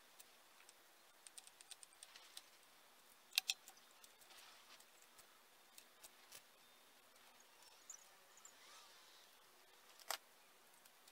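Faint metallic clicks of hand tools working on a motorcycle engine's cylinder head as its bolts are tightened: a quick run of light ticks, two sharper clicks about three and a half seconds in, and one sharp click near the end.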